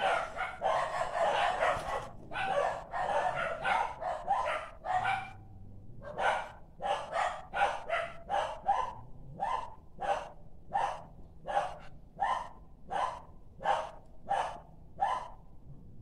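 A dog barking: a quick flurry of barks for the first five seconds or so, then a steady run of single barks, about one and a half a second, that stops near the end.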